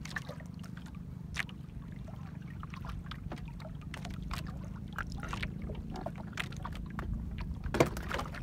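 Hand-hauling a longline from a small outrigger boat drifting at sea: a steady low wash of water and wind against the hull, with scattered light clicks and knocks from the line, hooks and fish being handled. There is one sharper knock near the end.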